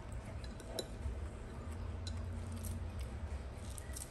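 A few faint, scattered clinks of a metal spoon against a bowl and plate, over a low steady background rumble.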